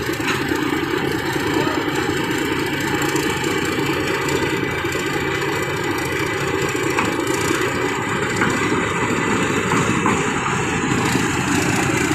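Combine harvester engine running steadily and evenly. The seller calls this machine the smoothest one, with its engine and pumps all running steady.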